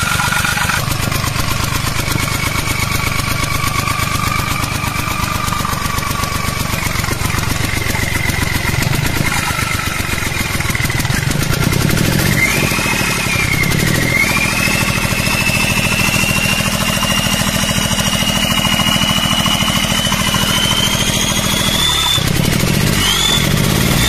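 Ford EcoBoost three-cylinder petrol engine running with a compression leak in one cylinder: a weak piston and bore are pushing blow-by gas out through the oil dipstick tube. A high whine glides up and down around the middle, then rises slowly in pitch through the second half.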